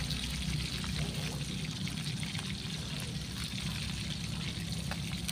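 Fish frying in oil in a metal pan over a wood fire: a steady sizzle, with a few faint clicks as the firewood under it is moved.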